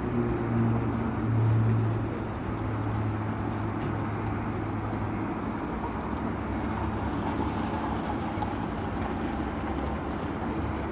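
Propeller aircraft engine droning overhead, heard as a steady rushing noise with a low hum that fades out about halfway through.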